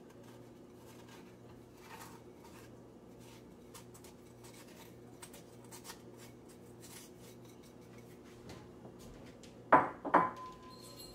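Faint scraping and light tapping as granulated sugar is tipped from a ceramic bowl into a glass mixing bowl. Near the end come two sharp clinks about half a second apart, and the second rings briefly.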